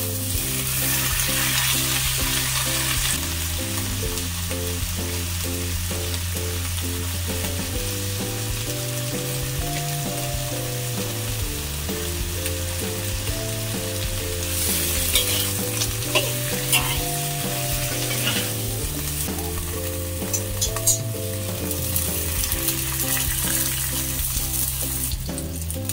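Choy sum sizzling in hot oil in a wok as it is stir-fried and turned with a metal spatula; the sizzle swells at times. Background music with a steady bass line plays underneath.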